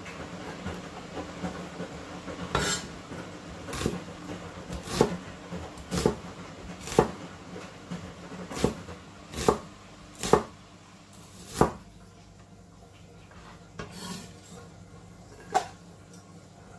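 Kitchen knife cutting onions on a chopping board: about eleven sharp knocks, roughly one a second, with a short pause near the end. Rubbing and scraping comes before the first knock.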